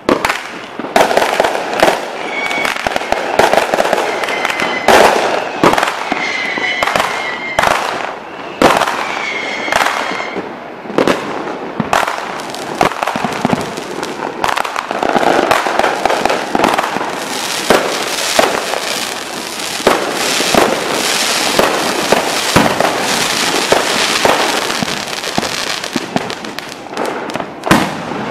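Large aerial fireworks display: firework shells bursting in a dense, irregular barrage of sharp bangs that goes on without a break.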